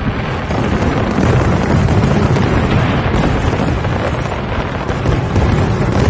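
Loud, steady casino-floor din from slot machines, dense and heavy in the low end.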